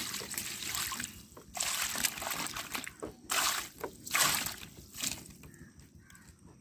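Water poured over raw chicken pieces in a bamboo basket, splashing and trickling through the weave in several short pours as the cut meat is rinsed by hand.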